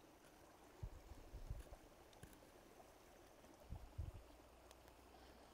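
Near silence, with two brief clusters of faint low bumps about a second in and about four seconds in.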